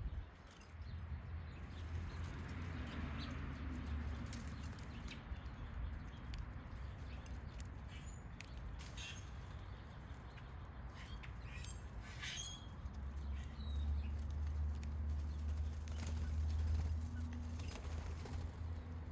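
Backyard birds at a feeder giving a few short chirps and calls, with scattered short taps over a low steady rumble.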